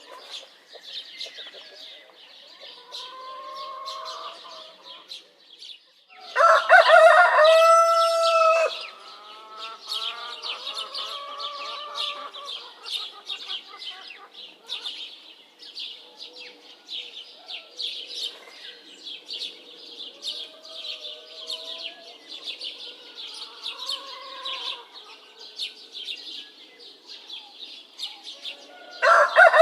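A rooster crowing loudly twice, once about six seconds in and again right at the end, over the constant dense chirping of small birds. Softer, more distant calls come and go in between.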